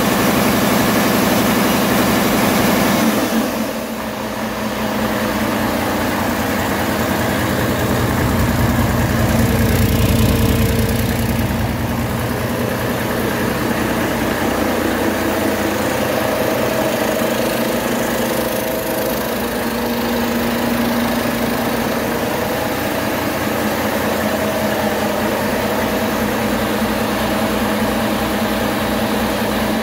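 A used 2020 Volvo D13M inline-six turbodiesel, with 500,000 miles on it, running steadily on a test stand. The seller rates it as running excellent. Its note shifts about three seconds in.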